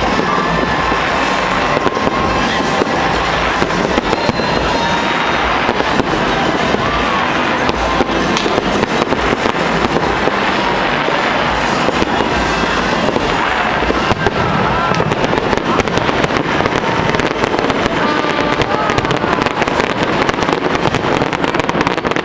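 Fireworks display bursting overhead in rapid, continuous succession: a dense run of bangs and crackles with no break.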